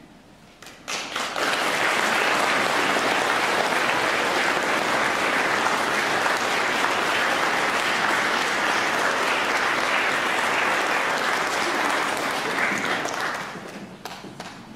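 Church congregation applauding: the clapping starts about a second in, stays steady, and dies away near the end.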